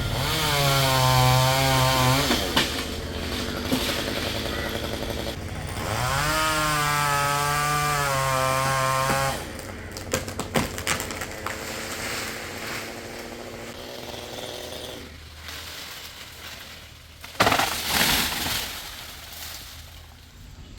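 Chainsaw revved to full throttle twice for about two and three seconds, with the pitch rising and then holding as it cuts. In between and afterwards it runs lower. A sudden loud crash comes near the end.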